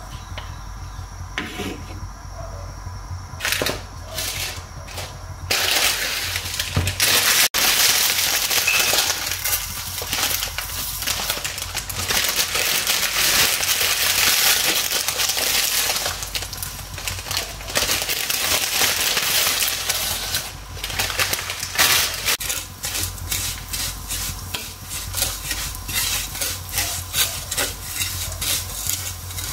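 Butter sizzling in a nonstick frying pan, the hiss turning loud and steady about six seconds in. In the second half, a wooden spatula stirs dry vermicelli in the hot pan: a fast run of scraping and crackling strands.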